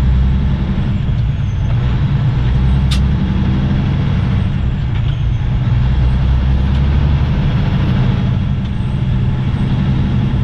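Semi-truck diesel engine running steadily, heard from inside the cab as a deep drone, with one sharp click about three seconds in.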